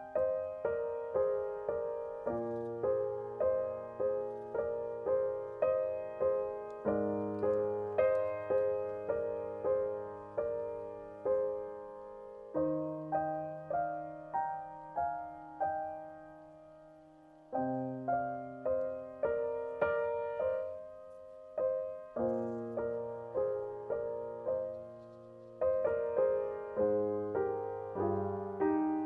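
Background piano music: notes struck about twice a second, each fading away, over lower notes that change every few seconds.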